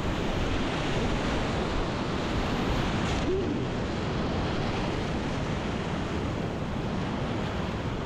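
Whitewater rapids rushing steadily around a kayak, heard close up from the paddler's point of view, with some wind on the microphone.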